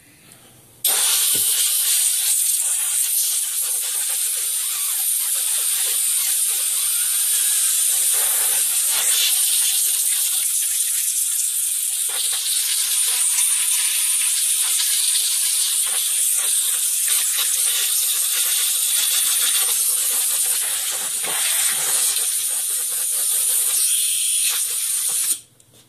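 Compressed air from an air compressor's duster nozzle, blowing a loud, steady hiss into the opened laptop to clear dust out of the fan and heat sink. It starts suddenly about a second in and cuts off shortly before the end.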